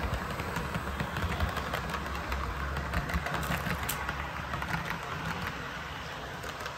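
HO scale model train, a VIA Rail diesel locomotive pulling passenger coaches, running on the track: a steady motor hum with light clicking of metal wheels over rail joints and turnouts.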